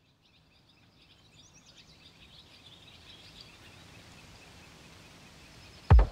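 Woodland ambience fading in: birds chirping in quick runs of high notes over a faint steady hiss. A single loud, low thump comes near the end.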